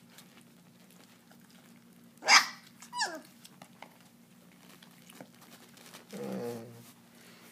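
German shepherd puppies jostling at a food plate: one gives two sharp yelps falling in pitch, about a second apart, a couple of seconds in, and a short low growl follows near the end. Faint small clicks of chewing and licking run underneath.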